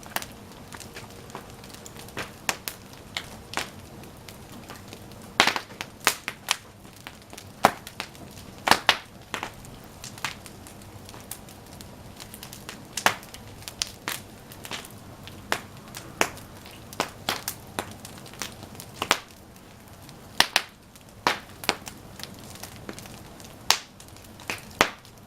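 Wood bonfire burning: a steady hiss of flames under irregular sharp crackles and pops, several a second, with louder snaps now and then.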